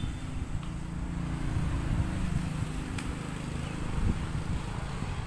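A motor engine running in the background, a low uneven rumble, with a single sharp click about three seconds in.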